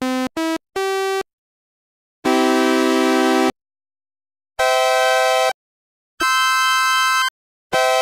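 Arturia MiniBrute analogue synthesizer played polyphonically through the M2P mono-to-poly software: three short notes, then three held chords of about a second each with silence between them, and one more short note near the end. Every note starts and cuts off abruptly.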